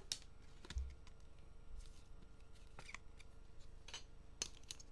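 Trading cards being handled and set down on a wooden table: a few faint scattered slaps and shuffles, with a soft thump about a second in.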